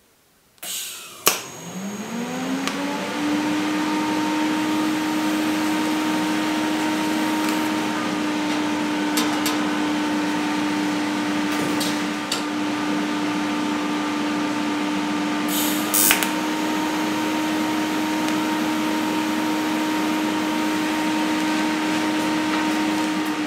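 An electric motor spins up about half a second in and runs at a steady whine with a hiss, broken by a few sharp knocks.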